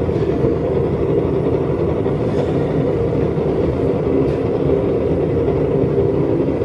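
Homemade blast furnace running steadily on low heat, its forced-air burner making a constant low rushing drone while the furnace is slowly brought up to temperature.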